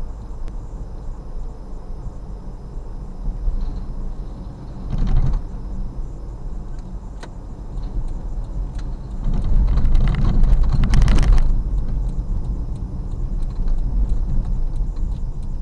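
Steady low rumble of a car driving, road and engine noise heard inside the cabin. It swells louder briefly about five seconds in and again from about nine to eleven and a half seconds, the second swell with a broad hiss.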